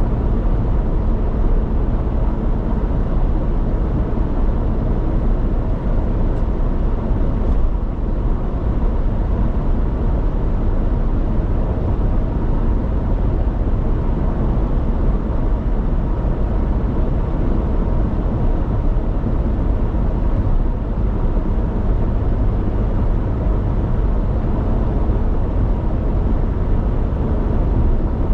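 Steady road noise of a car cruising at highway speed: an even rush of tyre and wind noise, deepest and strongest in the low range.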